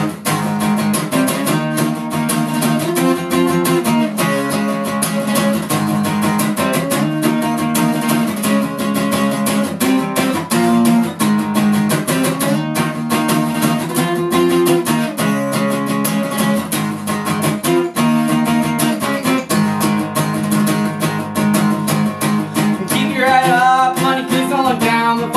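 Instrumental break of a song: guitar strumming a repeating chord progression. Near the end a higher, wavering melody line comes in over the chords.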